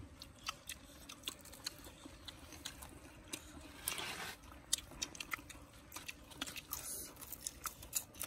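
Close-up chewing of crisp fried spiders: faint, irregular crunches and mouth clicks.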